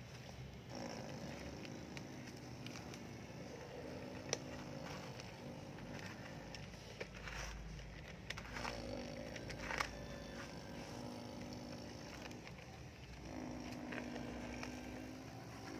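Radio-controlled excavator's motors whining in stretches, starting and stopping as the machine moves. Scattered clicks and a few sharper knocks come through near the middle.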